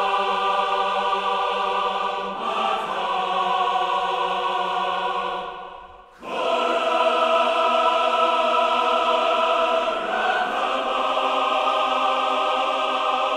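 Choral music: voices holding long sustained chords in two phrases, with a short break about six seconds in.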